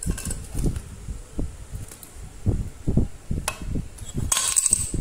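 Low, irregular thumps and knocks as a hand drill's opened gear housing is handled, with a sharp click about three and a half seconds in and a short scrape near the end as a screwdriver is put to the housing.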